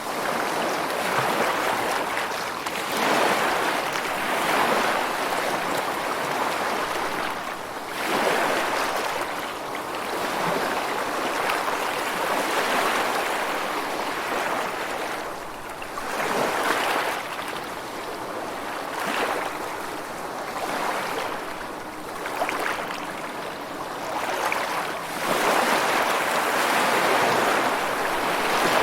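Rushing water: a steady noisy rush that swells and eases every few seconds.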